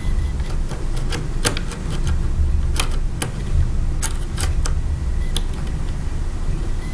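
Irregular small metallic clicks from a lock pick working the pins of a Yale pin-tumbler cylinder as it is picked, over a steady low rumble.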